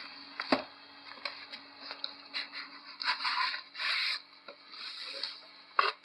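Cardboard box being opened by hand: the lid and flaps rub and scrape, with a sharp knock about half a second in and another near the end.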